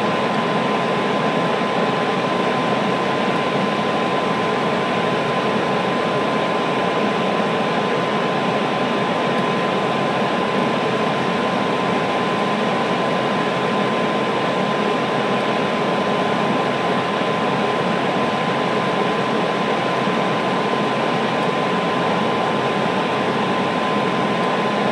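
Steady whirring fan noise with a constant thin tone through it, unchanging in level.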